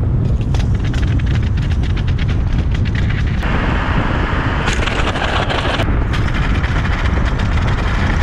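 Wind buffeting and road rumble on a steel abrasion-test rig towed behind a car at about 30 mph, with rapid clattering and knocks from its chains and bouncing sample carriers. From about three and a half to six seconds in, a louder, harsher scraping rises as the sand-weighted fabric samples drag on the asphalt.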